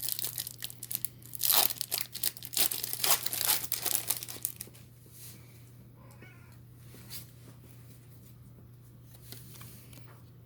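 A plastic trading-card pack wrapper being torn open and crinkled for about four and a half seconds, then quieter soft handling of the cards.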